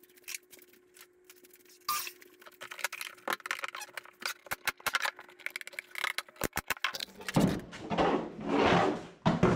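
A wooden pallet-board lid being handled on a workbench: scattered knocks and clicks, a quick run of four knocks, then louder rubbing and scraping as the lid is lifted and carried.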